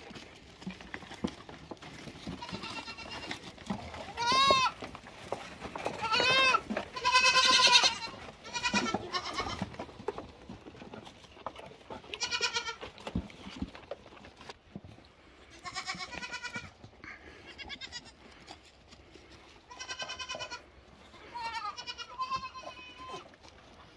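Goat kids bleating: a string of high, wavering bleats from several kids calling one after another, loudest in the first third.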